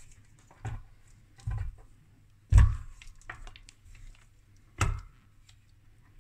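Heavy metal base-station transmitter unit being turned over on a workbench: about five dull thuds and knocks, the loudest about two and a half seconds in.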